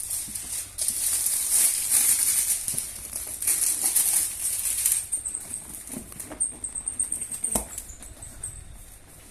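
Packaging being handled and opened: rustling and crinkling in repeated swells, then quieter handling with scattered clicks and one sharp knock.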